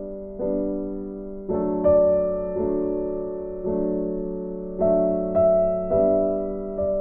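Background piano music: sustained chords struck about once a second, each ringing and fading before the next.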